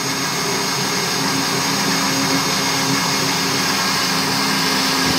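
Electric blender running steadily, its motor whirring with a constant hum and high whine as it blends a thick wet paste in the clear jar.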